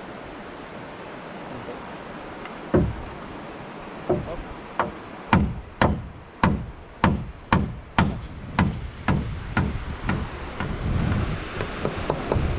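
Hammer driving a nail into a wooden roof batten: a couple of scattered blows, then a steady run of strikes about two a second that fades out near the end.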